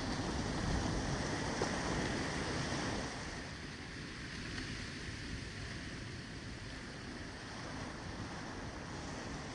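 Ocean surf washing onto a beach: a wave breaks louder over the first three seconds, then eases into a quieter, steady wash.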